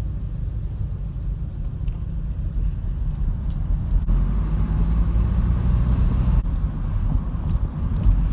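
Peugeot 306 XSi's four-cylinder engine and road noise heard while driving, a steady low rumble that changes abruptly twice, about four and six and a half seconds in.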